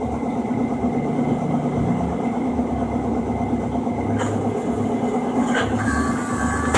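CNC plasma cutting machine running a cut: a continuous, steady noisy hiss and hum with a shifting low drone underneath.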